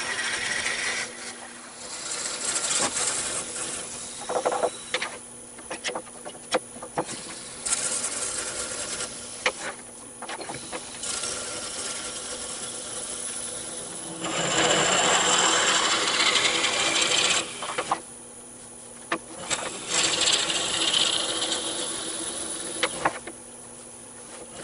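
Wood lathe running with a drill bit in a Jacobs chuck boring into the centre of a spinning olive-wood blank, cutting in repeated bursts of a few seconds with pauses as the bit is fed in and backed out. A steady motor hum runs under the cutting.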